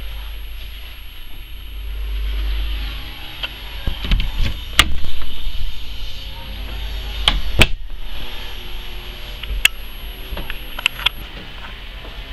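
Handling noise from a camera carried through a boat's cabin: a steady low rumble with a few sharp knocks and clicks. The loudest knocks come about five seconds in and as a pair about seven and a half seconds in, with smaller clicks later.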